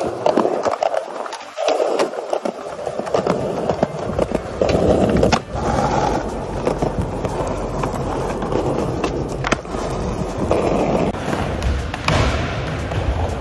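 Skateboard wheels rolling on concrete, with many sharp clacks and knocks of boards popping and landing.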